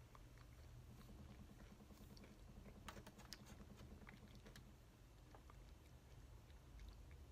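Near silence: room tone with a low hum and a few faint, scattered clicks, most of them about three seconds in.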